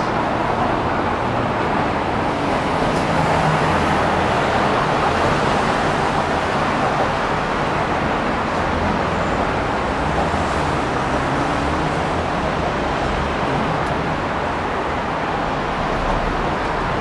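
Steady road traffic on an elevated expressway: an unbroken wash of tyre and engine noise from passing cars and trucks, with no single vehicle standing out.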